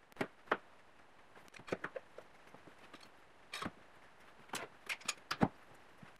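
Bar clamps being set on a metal strip over a wooden panel: a series of sharp clicks and knocks at irregular intervals, some in quick clusters, the loudest near the end.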